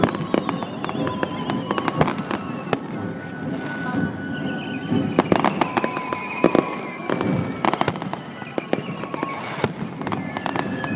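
Fireworks display: a rapid, irregular series of bangs and crackles from bursting shells, several louder bangs standing out among them.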